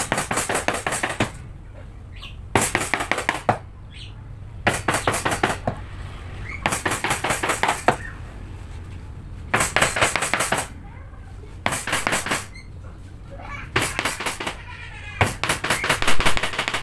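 Hammer rapidly striking the handle of a wood chisel as it cuts into a block of wood. The strikes come in about eight quick runs, each about a second long, with short pauses between.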